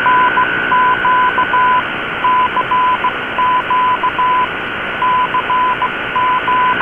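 Morse code beeps from a shortwave broadcast received in AM: a tone keyed on and off in long and short elements, over steady shortwave hiss and a constant higher whistle, with the narrow, tinny sound of AM shortwave audio.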